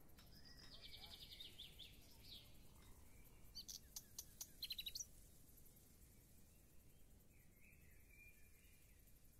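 Faint birdsong over quiet ambience: a trilling phrase in the first two seconds, a burst of quick high chirps around four to five seconds in, and a softer call near the end.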